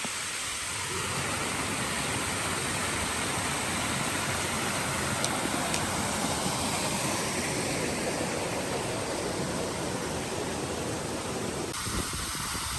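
Tumalog Falls waterfall: a steady, even rush of falling water.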